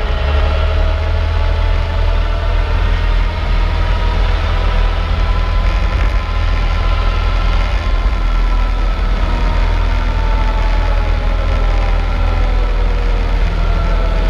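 Cessna 152's four-cylinder Lycoming engine and propeller, heard from inside the cockpit, running steadily at high power through the takeoff roll and lift-off. It makes a loud, even, deep drone with a faint whine on top that rises a little and then falls back in the second half.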